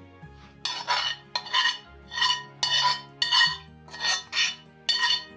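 A spoon scraping fried minced meat and onion out of a frying pan, a run of about nine short scrapes roughly half a second apart. Faint background music underneath.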